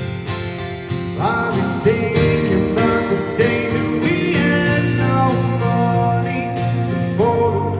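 Live band performance of a rock ballad: a male voice sings over guitar-led accompaniment, the vocal line coming in about a second in.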